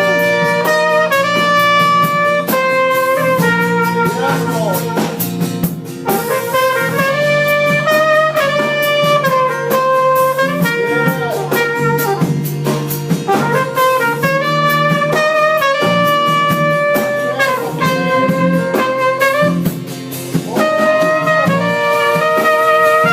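Trumpet playing a melody of held notes in phrases, over a jazzy backing with drums and bass.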